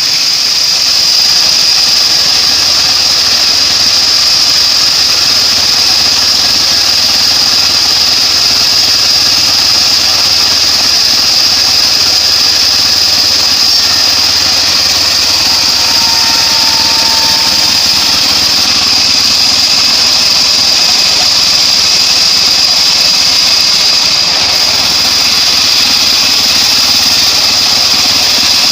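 Homemade bandsaw sawmill running steadily, a loud machine noise with a steady high whine over it.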